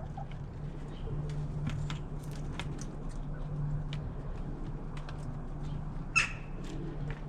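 Domestic hens pecking at treats, a scatter of quick taps, with one short squawk from a hen about six seconds in. A steady low hum runs underneath.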